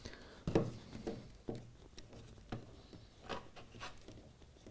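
Small plastic spring clamps being handled and clipped onto the top edge of a model railway wall: a handful of faint, short clicks and taps.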